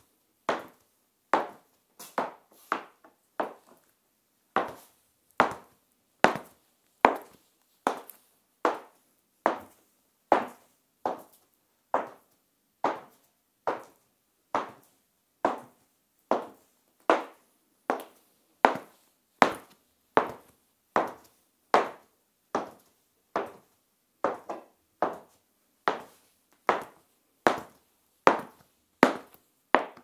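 Metal-tipped stiletto heels of court shoes clicking on floor tiles at a steady walking pace, a bit more than one sharp click a second, each with a short ring.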